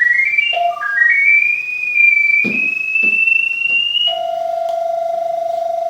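Electronic pipe-locator receiver tracking a sewer camera's sonde: tones climbing in quick stepped runs, then a tone gliding slowly higher, settling into a steady held tone about four seconds in. A knock about halfway through.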